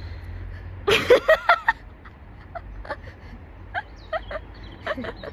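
A person laughing in a short burst about a second in, followed by fainter giggles and small voice sounds over a steady low rumble.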